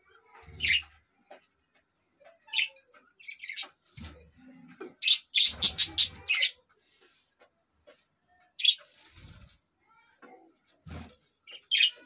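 Budgerigars giving short, sharp chirps, single calls spaced a few seconds apart and a quick run of about six near the middle, with low thumps alongside some of the calls.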